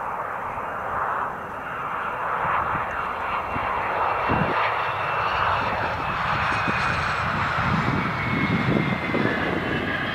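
Embraer ERJ-145 regional jet's two rear-mounted Rolls-Royce AE 3007 turbofans running as it lands: a steady jet roar with a high turbine whine that slowly falls in pitch, and a deeper rumble growing in the second half.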